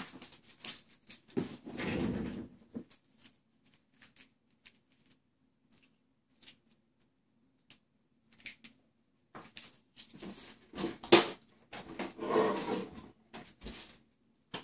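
Rustling and clicks of a laptop power adapter and its cord being handled and plugged in, in two spells, one about two seconds in and a longer one in the last few seconds, with a quiet stretch between them.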